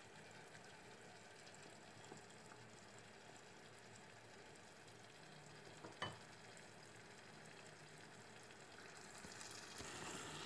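Sliced onions and raisins with sugar sizzling faintly in oil over low heat as they caramelize, with one light knock about six seconds in. Stirring with a wooden spatula picks up near the end.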